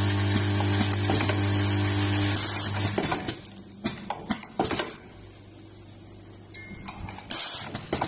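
Automatic USB cable soldering machine running: a steady mechanical hum with light clicking for about three seconds, which then stops suddenly. After that come scattered sharp clicks and knocks of the machine's moving parts, more of them near the end.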